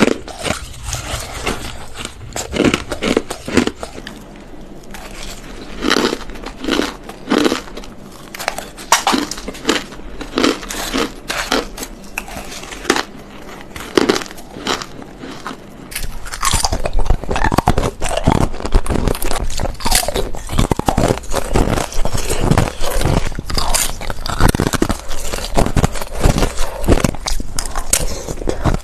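Crushed ice being bitten and crunched: a dense, irregular run of crisp crunches, louder and fuller from a little past halfway.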